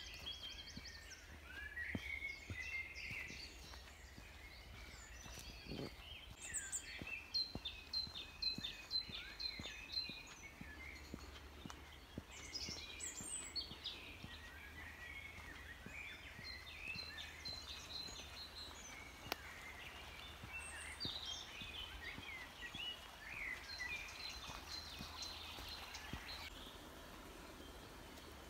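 Several songbirds singing and calling at once in a woodland, overlapping chirps and trills with quick runs of repeated high notes, over a faint steady low hum.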